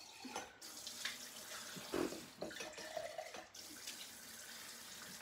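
Kitchen tap running into a sink as something is rinsed out, with a few light knocks.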